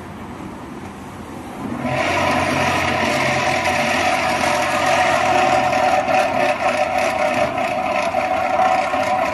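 Paper roll-to-sheet cutting machine running. About two seconds in it grows much louder into a steady whir with a whine, and a faint fast ticking comes in over the last few seconds.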